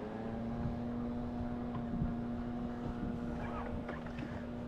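Boat motor running with a steady, even-pitched hum that comes on suddenly at the very start, over a low rumble of wind and water.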